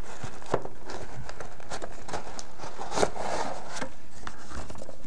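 Packing peanuts and paper rustling and rubbing against the inside of a cardboard box as hands dig through it, with many small crackles and a couple of sharper clicks.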